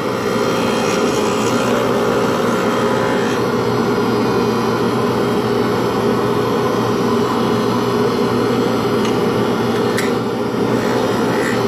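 Steady whir of a wood lathe and a dust-extraction vacuum running together in a workshop, with a faint click about ten seconds in.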